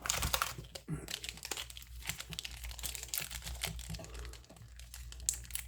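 Rapid, irregular crinkling and rustling from handling a 1993 Upper Deck baseball card pack and its wrapper.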